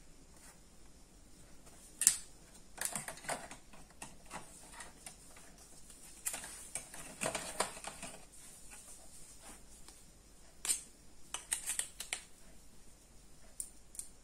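Small electronic parts and wires handled against the open sheet-metal case of a set-top box: scattered clicks and light rattles, with a sharp click about two seconds in and clusters of clicking around the middle and near the end.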